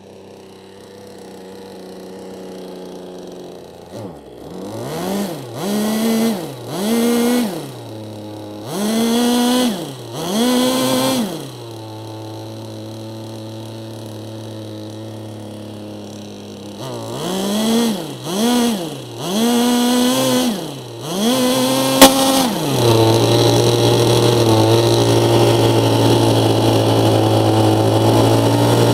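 K&B 82 glow engine driving a Turbax III ducted fan with a cut-down 9-blade Ramtec rotor, idling and then blipped up and back down about ten times in two bursts, with a sharp click just before it settles into a louder steady run. The owner says he can't get a good idle and blames a glow plug that isn't working right.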